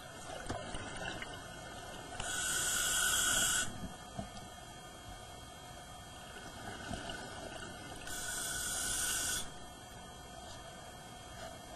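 Scuba diver breathing through a regulator underwater: two long hissing inhalations about six seconds apart, with the crackle and bubbling of exhaled air in between.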